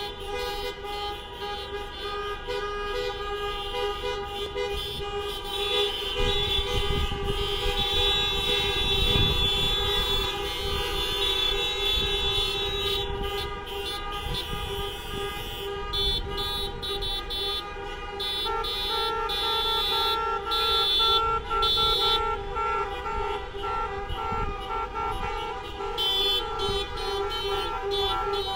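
Many car horns honking at once in a protest honk-in: several held horn tones overlap continuously, with stretches of rapid beeping in the second half, over the engines of slowly passing cars.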